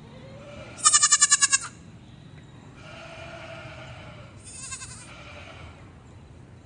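Goats bleating. A loud, quavering bleat comes about a second in, then a longer, fainter call, and a short quavering bleat near the five-second mark.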